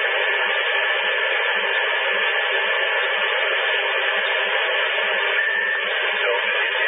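Steady hiss of band noise from a CRT SS 9900 CB radio on receive in SSB mode with no station coming through, a faint steady whistle running through it. The whistle shifts slightly about five seconds in as the radio is tuned down the band.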